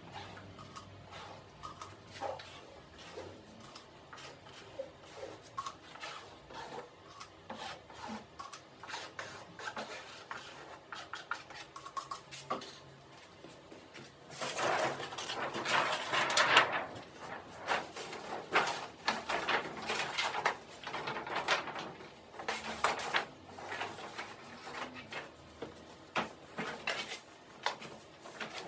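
Sped-up handling noise of a hand fiberglass layup: light taps and clicks at first, then from about halfway a louder stretch of rustling and crinkling, plastic film being handled and laid over the wet laminate.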